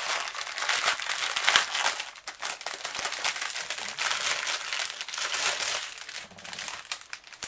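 Clear plastic bags of diamond-painting drills crinkling as the strip of bags is handled and unrolled, a continuous irregular crackle.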